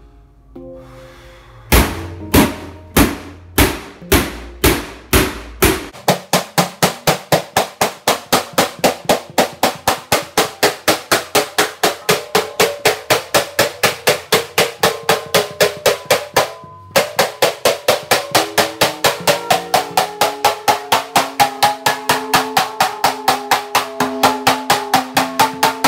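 Large wooden mallet hammering a thin steel sheet clamped over a barrel, sinking it into a handpan shell. About seven heavy, spaced blows give way some six seconds in to a fast, even run of about four strikes a second, with a brief break about two-thirds of the way through; the steel rings at shifting pitches under the blows.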